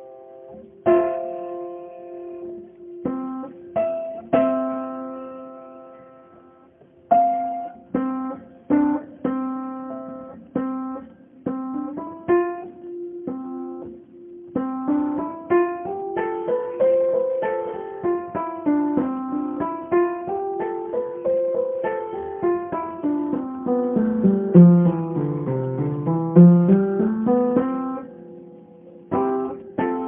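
Instrumental background music on piano and guitar. Slow, separate notes and chords ring out and fade, then from about halfway the notes run on in flowing lines that rise and fall in pitch.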